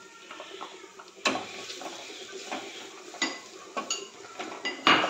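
Wooden spatula scraping and knocking against a frying pan as chopped coconut pieces are tipped in and stirred with banana pieces in ghee, over a faint sizzle. The knocks come irregularly, the loudest near the end.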